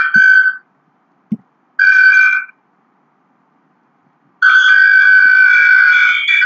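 Loud, steady high-pitched howl of audio feedback: a microphone picking up its own sound from a speaker. It cuts in and out abruptly: briefly at the start, again about two seconds in, then steadily from about four and a half seconds on, with a soft thump in one of the silent gaps.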